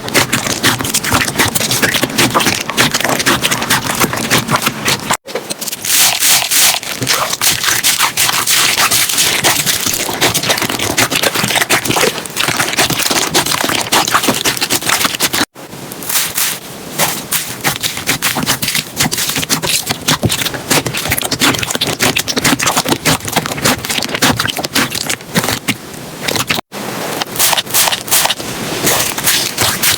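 Slime being squeezed and poked by hand, giving dense, fast crackling clicks and wet squelches. Three brief silent breaks mark the cuts between clips.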